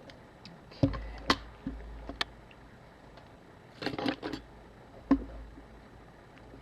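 Small metal tools and camera parts handled on a workbench: a few scattered clicks and light knocks, some with a dull thud as something is set down, and a short cluster of clatter about four seconds in.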